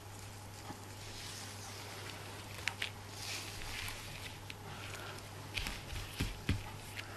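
Ribbon scraps rustling as they are handled and sorted on a work table, with several small sharp clicks and a few soft knocks, most of them in the second half.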